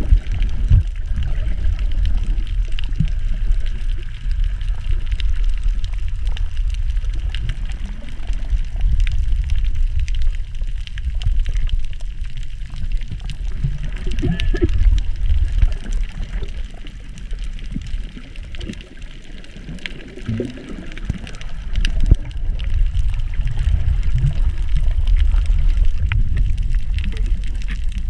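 Water rushing and bubbling heard underwater through a camera's waterproof housing as a snorkeler swims: a heavy, muffled low rumble that swells and fades, easing off for a few seconds about two-thirds of the way through.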